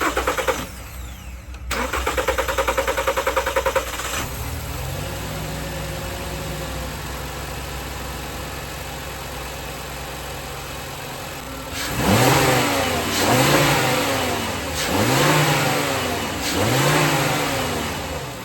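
2012 Volkswagen Passat engine, with a freshly replaced air filter, cranking on the starter for about two seconds before it catches, then idling; near the end it is revved four times, each rev rising and falling back. The hesitant start is, in the owner's view, probably from cleaner sprayed into the throttle body.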